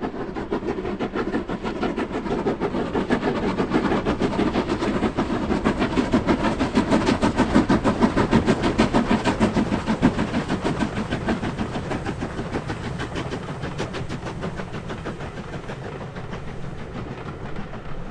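Steam-hauled train passing, its rapid rhythmic beat growing louder to a peak about halfway through and then fading away.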